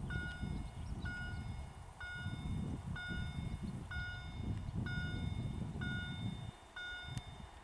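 Level-crossing warning signal sounding a short bright electronic ding about once a second, over an uneven low rumble.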